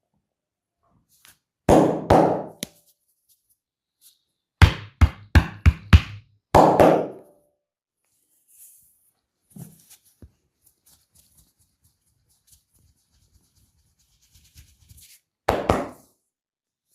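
Percussive hand-massage strikes: slaps and chopping blows with the hands on the body. They come in short bursts, the middle one a run of about five sharp hits in a second and a half.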